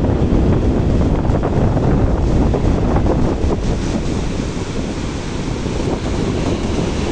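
Ocean surf breaking and washing over a rocky shore, with wind buffeting the microphone.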